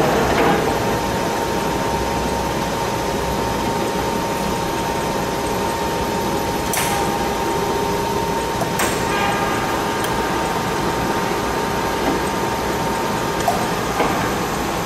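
1956 Warner & Swasey 3A turret lathe: its spindle finishes winding down at the start, then the machine hums steadily while stopped. Two sharp clicks from its controls come about seven and nine seconds in.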